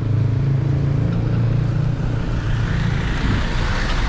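Road traffic: a steady low rumble, with a motor vehicle passing close whose engine and tyre noise swells from about two and a half seconds in and peaks near the end.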